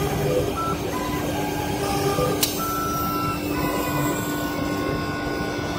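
CNC wood lathe running with its rotating brush sanding head working against a spinning carved wooden baluster. It is a steady mechanical noise with a constant low tone and short higher tones that step up and down in pitch, and there is one sharp click about two and a half seconds in.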